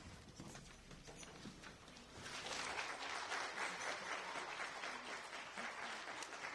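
Audience applause: a few scattered claps at first, then full applause about two seconds in.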